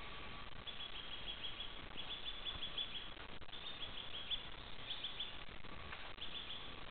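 A songbird singing: about five short runs of quick, high, repeated notes, a run every second or so, over a steady hiss.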